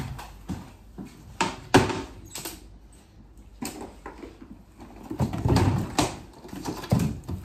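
Cardboard pigeon carrying box being handled: a run of sharp knocks and scrapes, the loudest a little under two seconds in, with another cluster of knocks and rustling near the end.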